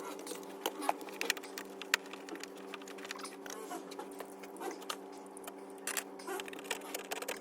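Scattered light taps and clicks of hand work on a wall while an outlet hole is being cut, over a steady low hum.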